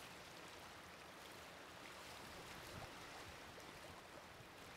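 Faint, steady wash of choppy river water.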